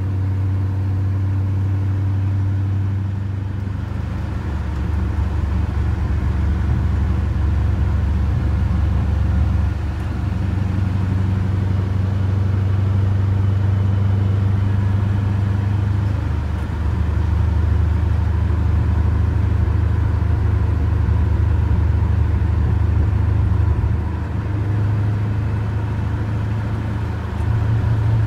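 Engine of a squarebody Chevrolet pickup running at road speed under a heavy load, heard from inside the cab as a steady low drone over road noise. Its pitch shifts a few times along the way.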